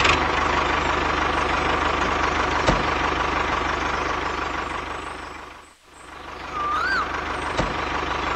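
The small motor of a homemade mini toy tractor running steadily with a fast, even hum, as it pulls a trailer. It fades out briefly about six seconds in and comes back. A short whistle-like chirp follows soon after.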